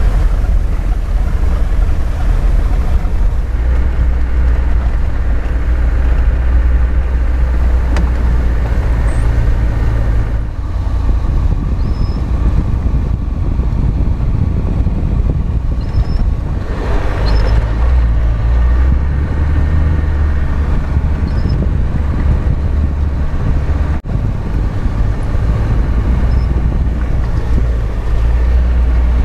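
Land Rover Defender driving along wet, flooded dirt tracks: a steady low engine and tyre rumble with wind noise on the bonnet-mounted microphone.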